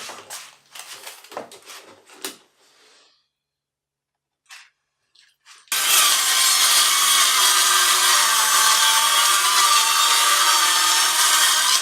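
Knocks and rubs of thin plywood being handled, then a power saw ripping 1/4-inch plywood: a loud, even cutting noise that starts abruptly about six seconds in, with a faint wavering whine in it.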